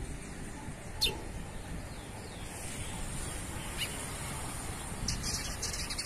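Young curió (chestnut-bellied seed-finch) singing: a single high note about a second in, another near four seconds, then a quick run of sharp high notes near the end, over a steady low background rumble.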